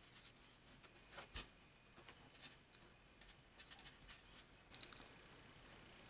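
Faint, scattered rustles and light scrapes of paracord being handled and pulled through a knot to tighten it, over near silence; the loudest comes a little before the end.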